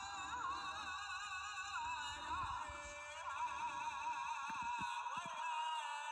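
Background music: a sustained, wavering melody with heavy vibrato, like singing, over a low rumble with a few knocks that stops about five and a half seconds in.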